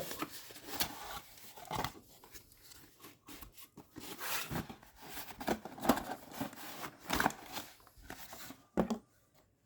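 A cardboard retail box being opened and handled by hand: irregular rustling, scraping and small knocks as the packaging comes apart.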